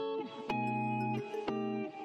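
Background music: a melody of single plucked guitar notes, changing about twice a second.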